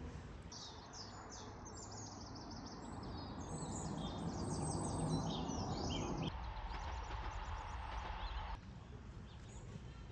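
A songbird singing a quick run of high chirping notes for about five seconds, over a steady outdoor background rumble that swells in the middle and then drops away.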